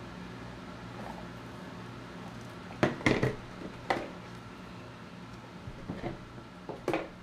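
Handling noise: a few sharp knocks and clatters as the neon signs and their cords are moved and set down, the loudest about three seconds in. A steady low hum continues underneath.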